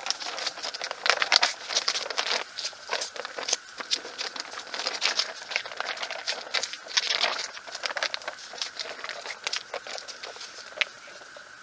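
Plastic zip-top marinade bag crinkling and rustling as it is handled, sealed and shaken with a steak inside, in a busy run of irregular crackles that thins out toward the end.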